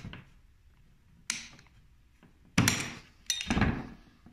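Metal tools knocking and clinking on a wooden workbench as a spanner wrench works a cutter's locking nut tight on an angle grinder. Three sharp knocks with a short ring after each: one about a second in, then two louder ones a little over halfway through.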